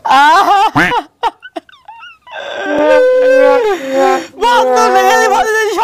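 A man wailing and crying in a drawn-out, sing-song lament. His voice wavers and breaks for about a second, drops away with a few faint sobs, then holds long wailing notes from a little past the middle onward.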